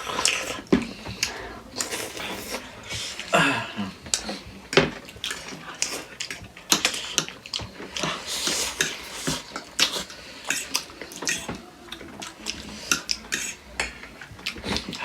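People eating spicy chicken feet at close range: chewing, sucking and lip-smacking, with frequent clicks and clinks of cutlery and dishes.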